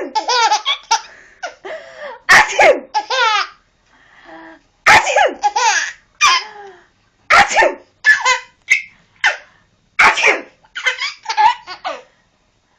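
A small child laughing hard in about five bouts, roughly every two and a half seconds. Each bout opens with a sharp burst and breaks into high, fast laughter, set off by a sneeze being funny.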